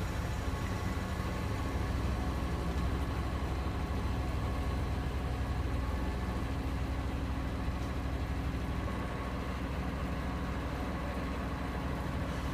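Heil garbage truck's engine running steadily: a low rumble with a faint steady whine above it.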